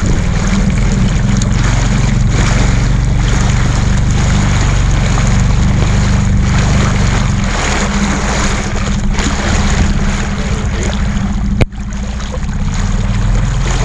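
Dinghy outboard motor running steadily under way, with water rushing along the hull; a sharp click and a brief drop in level near the end.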